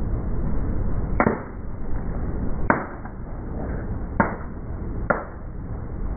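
Four sharp cracks, one every second or so, as hard objects snap under a car tyre, over the car's steady low engine rumble.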